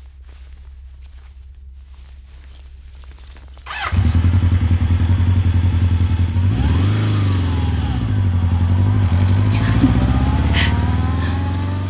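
A motorcycle engine comes in suddenly about four seconds in, loud, revs briefly and then runs steadily. Before it, only a low hum.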